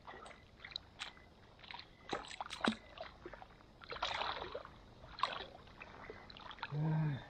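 Water splashed and sloshed by hand in irregular bursts, with a man's short grunt near the end at the icy water.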